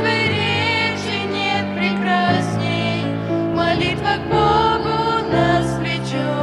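Hymn singing over sustained instrumental accompaniment, the voices holding long notes with vibrato while the chords underneath change every second or so.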